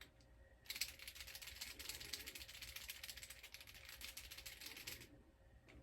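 Small 3D-printed plastic parts rattling against each other in a quick, dense clatter of clicks. It starts about a second in and stops about a second before the end.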